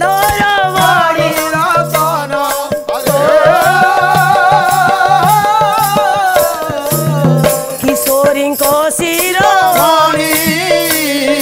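Odia pala singing: a woman sings a long, wavering melodic line over a steady low drone, with rhythmic jingling percussion.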